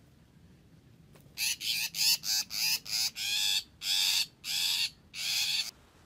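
A shrike caught in a ground noose giving a run of about ten harsh, grating calls, starting about a second and a half in, the later calls longer: the alarm and distress calls of a trapped bird.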